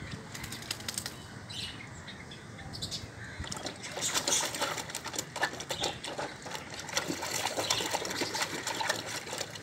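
Puppy splashing and pawing at water in a plastic tub: irregular small splashes and sloshing, busier from about four seconds in.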